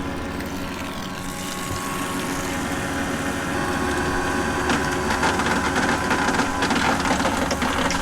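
1100 gallons-per-hour electric bilge pump running on its automatic switch, a steady motor hum as it pumps water out of the hull. The sound grows louder and rougher about halfway through.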